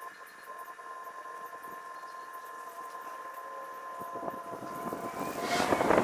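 A faint steady hum, joined from about four seconds in by rough wind noise on the microphone that grows louder near the end.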